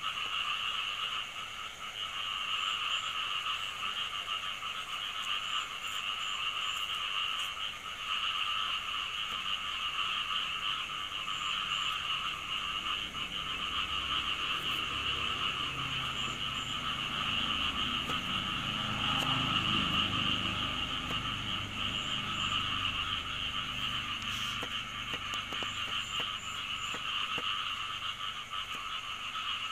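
A dense, steady chorus of frogs calling, a continuous trilling drone. A few faint knife taps on a wooden cutting board, and a low rumble that swells and fades about two-thirds of the way through.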